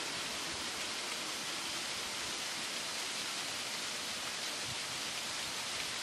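A steady, even hiss with no change in level throughout.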